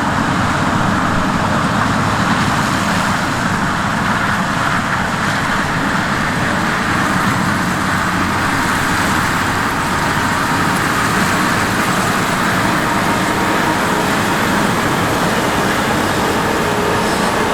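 Heavy farm machinery running steadily during a grain-maize harvest: a loud, even mechanical rush with a low engine drone underneath.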